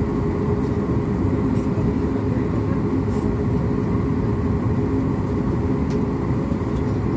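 Steady drone of an airliner cabin, from the engines and ventilation, with a low even hum.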